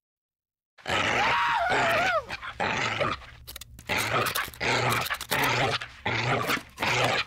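Cartoon dog voice growling and snarling in repeated rough bursts, with a wavering whine-like rise and fall near the start. It begins after about a second of silence.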